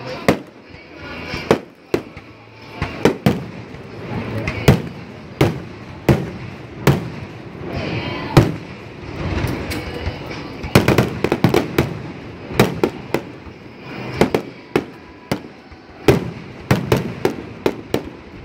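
Aerial fireworks bursting, with a sharp bang roughly every second and quicker runs of bangs and crackling about eleven seconds in and again near the end.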